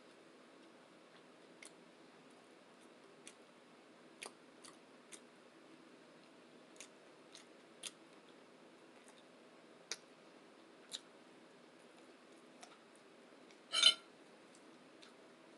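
Close-miked eating: sparse soft mouth clicks and smacks while chewing, with one louder crackle near the end.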